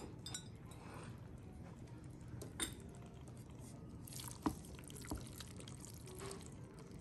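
Faint kitchen handling sounds: three light clicks or knocks, and a wooden spoon stirring thick, saucy macaroni goulash in a stainless steel pot.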